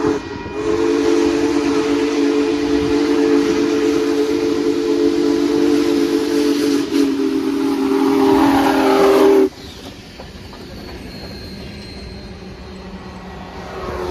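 Union Pacific 4014 Big Boy steam locomotive sounding its chime whistle, a loud chord of several steady tones, briefly broken just after the start and then held until it cuts off abruptly about nine and a half seconds in. After that the train is quieter as it rolls through the crossing.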